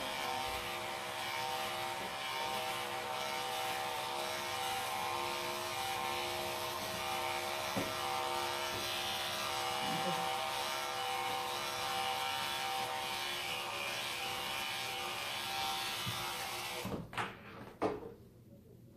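Electric dog grooming clippers running with a steady buzz, which stops near the end, followed by two knocks.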